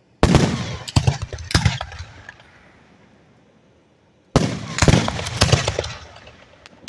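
Fireworks bursting directly overhead. A quick run of sharp bangs comes just after the start and another about four seconds in, each dying away over a second or two.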